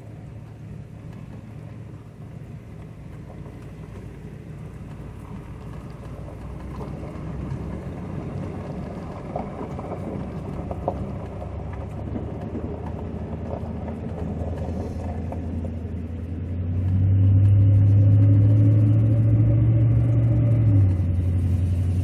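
Chevrolet Silverado pickup heard from inside the cab while driving: a low engine and road drone. About seventeen seconds in it gets much louder and its pitch edges up as the truck speeds up, then it steps down in pitch near the end.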